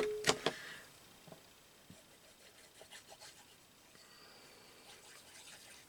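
Glue being applied to a small paper piece: two sharp clicks at the start, then faint rubbing and light ticks of the glue and paper being worked.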